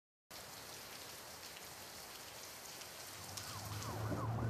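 Steady rain hiss, joined about three seconds in by a low steady hum and a fast-warbling emergency siren, both growing louder.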